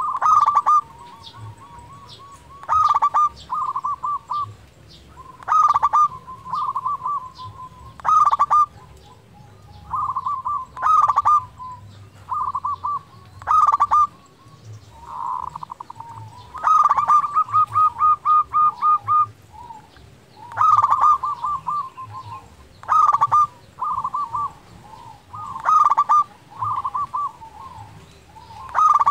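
A local perkutut (zebra dove) singing over and over. Each phrase is a quick run of short cooing notes that opens with a louder note, and the phrases come every two to three seconds, with one longer run about two thirds of the way in.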